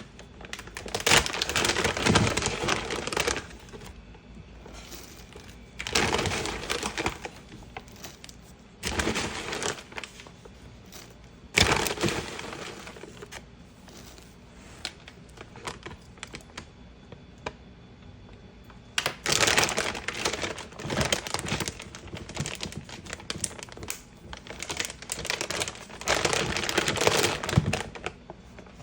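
Dried herbal-medicine ingredients being handled by hand, rustling and crackling in several bursts of a second or a few seconds, with a longer lull midway.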